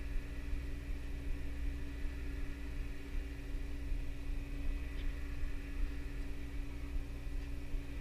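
Fishing boat's engine running steadily: a low, even hum with a held tone over it.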